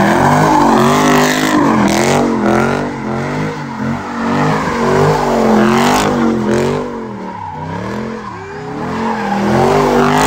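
Dodge Charger's V8 spinning donuts, the engine revs rising and falling in waves about once a second with the rear tyres screeching on the pavement.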